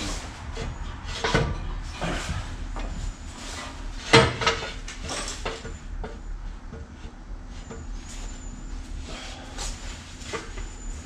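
Irregular knocks and clunks of hands-on work on a car, the loudest a sharp bang about four seconds in.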